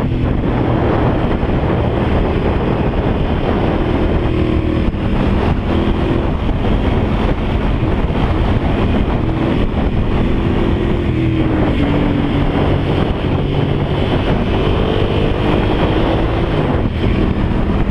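Motorcycle engine under way, its pitch rising and falling again and again as the throttle is worked through the corners, under heavy wind noise on the microphone.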